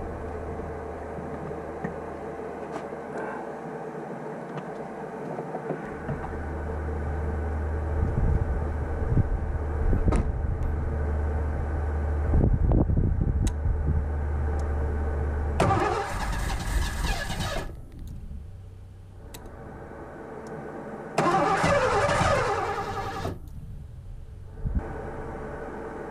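1984 Ford LTD Crown Victoria's V8 running after being primed by hand with gasoline poured into its central fuel injection throttle body. It runs steadily, with two louder surges lasting a second or two each, about sixteen and twenty-one seconds in.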